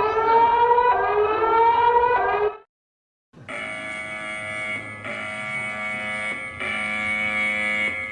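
Electronic emergency-alert siren tones: two rising siren sweeps, cut off after about two and a half seconds. After a short gap comes a steady, buzzing, many-toned alert tone in pulses of about a second and a half.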